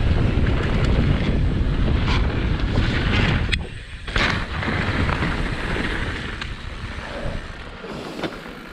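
Wind buffeting the microphone and tyres rolling over a dirt trail as a Specialized Stumpjumper mountain bike rides a jump line, with sharp clicks and rattles from the bike. The rumble drops out briefly a little over three seconds in, then resumes and fades toward the end.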